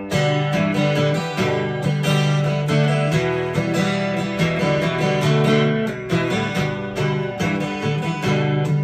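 Ovation acoustic-electric guitar strummed in a steady, driving rhythm, chords in the key of G, as the instrumental introduction before the singing starts.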